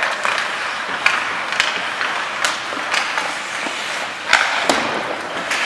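Ice hockey play: skate blades scraping on the ice, with sharp clacks of sticks and puck, the loudest a bang a little over four seconds in.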